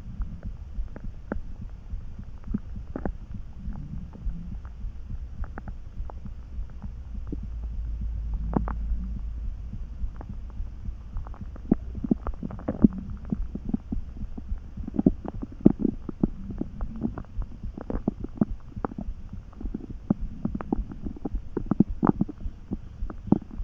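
Hungry stomach gurgling and churning: a scatter of small pops and squelches that gets busier from about halfway through, over a low steady thrum.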